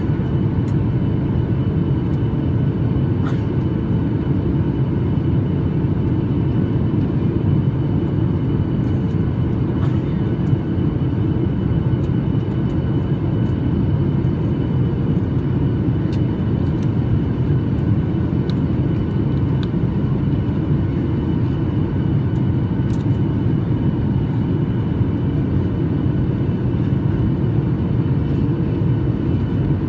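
Steady cabin noise aboard a SpiceJet Boeing 737 in flight: the jet engines and the airflow over the fuselage make a constant low rumble, with a faint steady whine above it.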